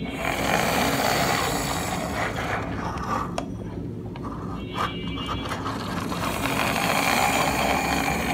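Toy bus being handled, its plastic wheels and mechanism rolling with a continuous rattling whir and a couple of sharp clicks.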